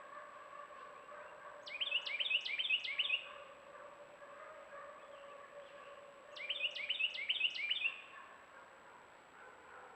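A songbird sings two phrases, each a quick run of about five repeated sweeping notes, one about two seconds in and another about six seconds in, over steady background noise.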